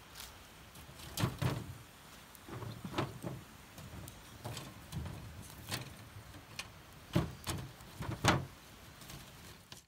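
A string of sharp knocks and clatters, about eight in all, as split wood sticks are dropped into a tin-can hobo stove and a glass bottle is set down into it, with a few duller handling thumps between.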